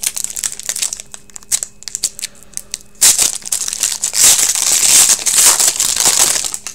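Foil wrapper of a hockey card pack crinkling and crackling as hands work it open, louder in the second half.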